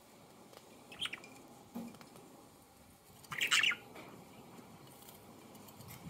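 Budgerigars chirping: a short chirp about a second in, then a louder, longer chirp about midway.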